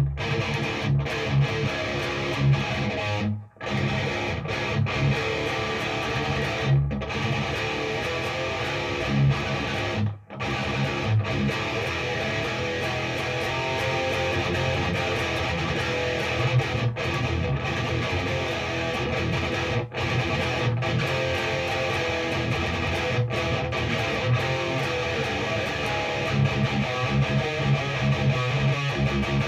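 Electric guitar played through a Peavey 6534+ all-tube amp head on its high-gain channel: heavy, distorted metal riffing with thick low notes. The riffing breaks off sharply twice, about three and ten seconds in.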